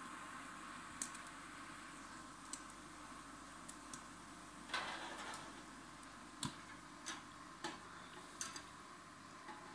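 Scattered metal clicks and clinks as a stainless-steel lifting handle hooks into and draws out the grate of an infrared steak grill, with a short scrape about five seconds in and the loudest clack about a second and a half later. A faint steady hum runs underneath.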